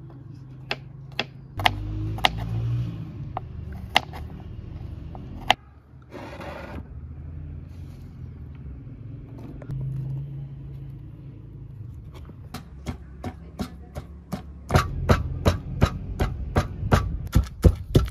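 Knife chopping on a cutting board: a few scattered cuts, then steady chopping at about three strokes a second over the last several seconds, over a low rumble.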